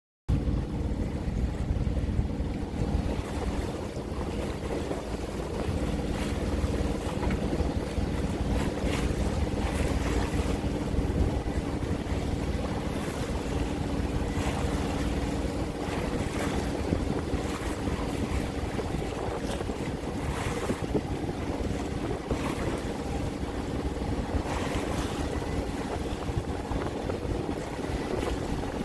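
Ohlson 8:8 sailing yacht under engine, its motor running at a steady pitch, with water washing along the hull in irregular slaps and wind buffeting the microphone.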